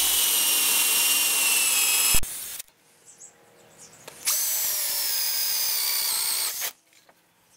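Handheld power drill with a 12 mm spade bit boring holes in a timber board: two runs of a steady high whine, the first stopping about two seconds in and the second starting about four seconds in and stopping near the end.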